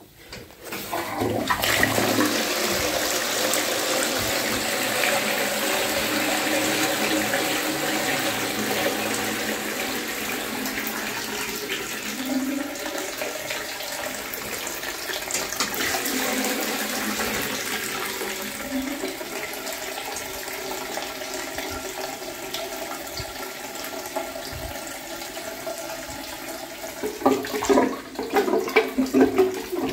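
Flushometer-valve toilet flushing: water rushes into the bowl with a sudden start about a second in and keeps running steadily for over twenty seconds, turning uneven with louder surges near the end.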